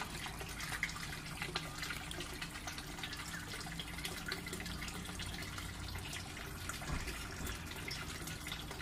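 Water steadily trickling and splashing as a gutter grow bed's siphon flushes into the gutter below, in a cascading flood-and-drain aquaponics set.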